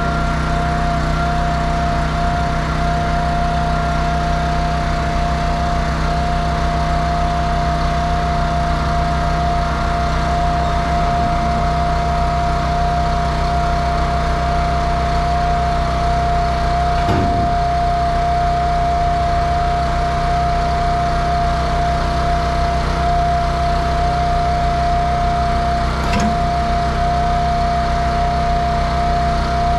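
Kenworth T800 semi truck's diesel engine running steadily, with a constant high whine held over it. Two brief knocks sound, one a little past halfway and one near the end.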